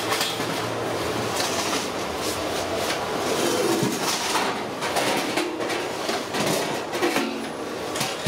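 Hands working a wet chicken marinade in a large aluminium pot, with irregular knocks and clatter over a steady rumbling background noise.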